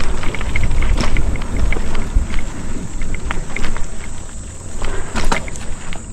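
Mountain bike riding along a dirt trail: wind buffets the microphone with a steady low rumble while the tyres roll and the bike rattles over bumps. There are sharp clicks and knocks, clearest about a second in and again around five seconds in.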